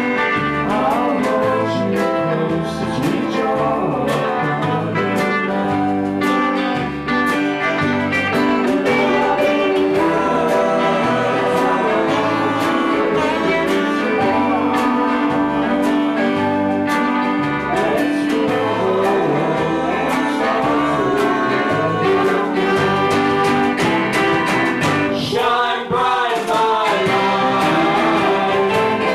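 Live band music: a song with a singer and guitar over bass notes and a steady drum beat.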